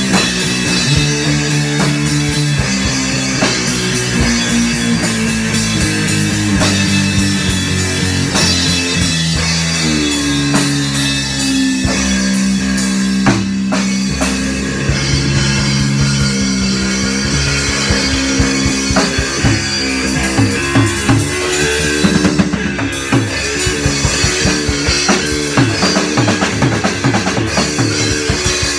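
Live rock jam on drum kit and guitar: the guitar holds low notes that change every second or two over steady drumming, and the drumming gets busier in the second half.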